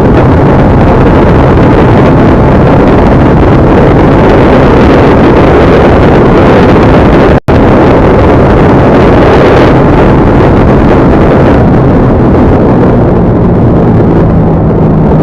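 A vehicle's engine running steadily under loud, continuous wind noise on the microphone while on the move. The sound cuts out for a split second about seven seconds in.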